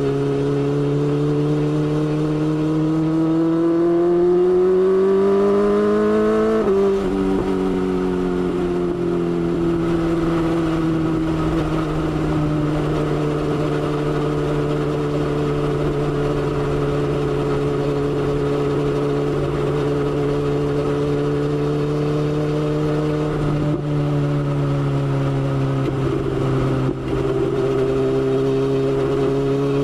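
BMW S1000XR's inline-four engine under way. It rises steadily in pitch as the bike accelerates for about seven seconds, drops suddenly at an upshift, then holds a steady cruise, eases off a little later on and pulls again near the end.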